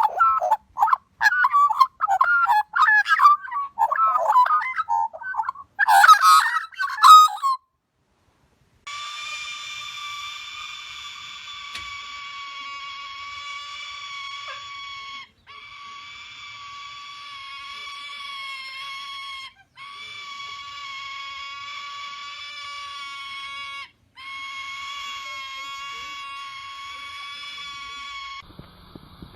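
A bird giving loud, rapid, harsh honking squawks for about seven seconds. After a short pause comes a long, steady, high tone that holds one pitch and breaks off briefly three times.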